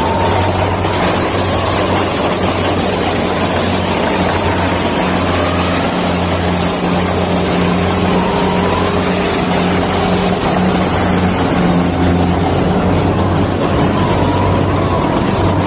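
Kubota DC-70 tracked rice combine harvester's diesel engine running steadily under load, with the threshing machinery going, as it cuts lodged rice in soft, sinking mud.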